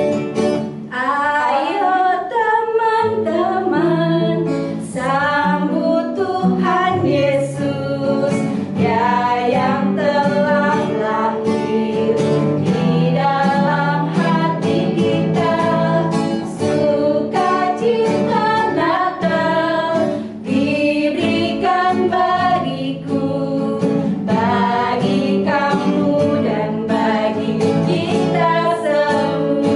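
A woman's voice singing a lively Christmas praise song in Indonesian, accompanied by acoustic guitar.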